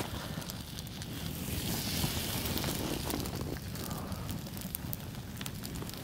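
Small campfire of branches burning, with scattered sharp crackles and pops.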